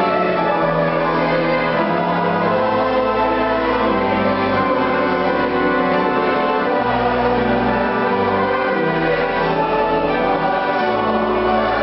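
Organ music: sustained chords with the bass notes changing every second or two.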